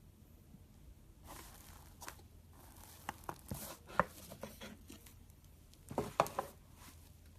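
Slime being squeezed and pressed by hand, giving irregular sharp pops, clicks and crackles. It starts a little over a second in, with the loudest pops about four seconds in and a quick cluster near the end.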